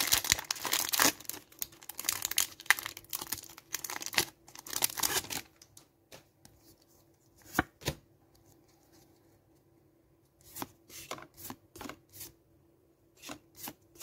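Foil Pokémon booster pack wrapper being torn open and crinkled for about five seconds. Then it goes quiet apart from a few short clicks and flicks as the cards are slid off the stack one by one.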